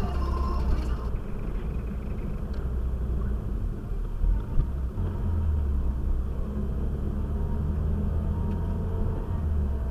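Steady low rumble of a Renault Mégane RS's engine and tyres on the road, heard from inside the car, with a couple of short thumps about four seconds in. Background music fades out about a second in.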